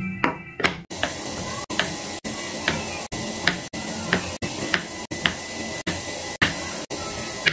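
Food frying in hot oil in a pan: a steady sizzle that sets in about a second in, with short sharp clicks roughly twice a second.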